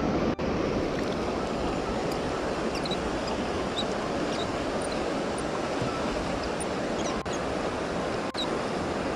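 Rushing river water running fast over a shallow, rocky riffle: a steady, even rush.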